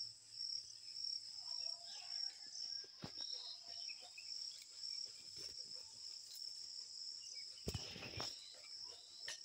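Insects chirring in a steady, high-pitched, unbroken drone, with a few brief rustles and knocks, the strongest a little before the end.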